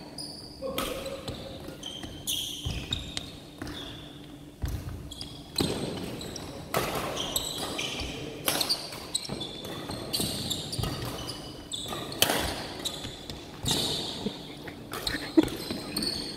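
Badminton rally: racket strokes on the shuttlecock about every one to two seconds, echoing in a large hall, with footsteps and short high squeaks of shoes on the wooden court floor.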